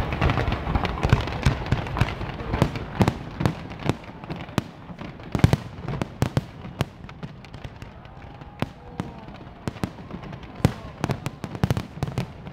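Fireworks display: a rapid, irregular run of sharp bangs and crackles, densest in the first half and thinning out later, with crowd voices under the early bangs.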